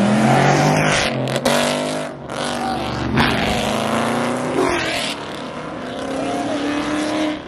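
Muscle cars, Ford Mustangs and a Dodge Charger, accelerating hard away from a standstill, their engines and exhausts revving up loudly. Several short clips are spliced together, so the engine note breaks off and restarts abruptly a few times.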